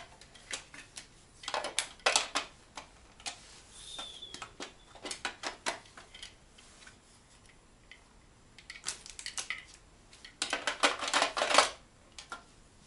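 Small hard plastic pieces clicking and clattering as they are handled, with scattered single clicks and a dense burst of clatter near the end.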